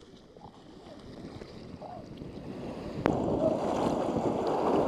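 Whitewater rapids rushing past a camera riding at the water's surface. The rush grows steadily louder, then a sharp splash about three seconds in leaves it loud.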